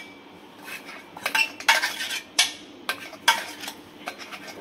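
A metal spoon scraping and clinking against a stainless-steel mixer-grinder jar and a bowl as ground meat is scraped out, in a run of irregular clinks and scrapes, the sharpest a little past three seconds in.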